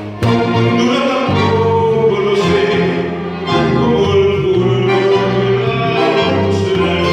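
Tango orchestra of violins, cello and bandoneón playing behind a male singer. The ensemble comes back in together after a brief gap right at the start.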